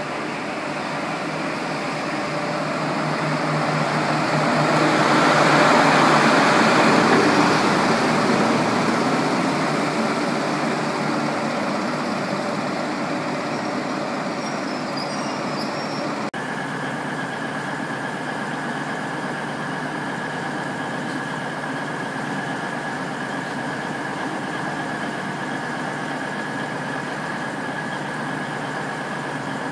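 Class 43 diesel power car of an InterCity 125 High Speed Train running past, growing louder to a peak about six seconds in and then fading. From about sixteen seconds in, a steady diesel idle with a held high whine from a Class 222 Meridian standing at the platform.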